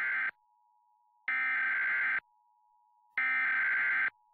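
Emergency Alert System SAME header: screechy digital data tones sent in bursts about a second long with about a second of silence between them. The end of one burst is followed by two full bursts, the standard three-times-repeated header that opens an EAS alert.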